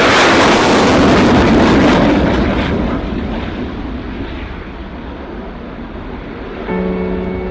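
Saab JAS 39 Gripen fighter jet climbing away on afterburner after takeoff: a loud jet roar that fades after about three seconds, its high hiss dropping away first. Music starts near the end.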